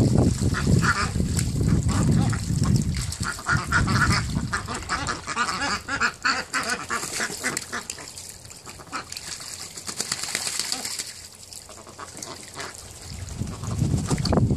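A flock of Indian Runner ducks quacking and honking while they splash and bathe in a shallow plastic pool of water. The calling is busiest in the first several seconds, dies down in the middle and picks up again near the end.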